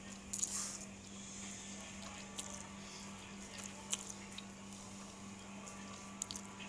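Soft squishing and scattered light clicks, a handful of separate short sounds, over a steady low hum.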